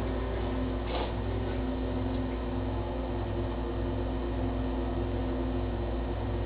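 Steady machine hum with hiss and a few low steady tones, and a faint click about a second in.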